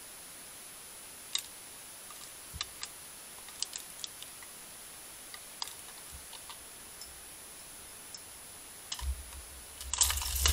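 Scattered sharp clicks and taps from a badger working at a hanging tube bird seed feeder, then a louder burst of clattering with a low rumble near the end.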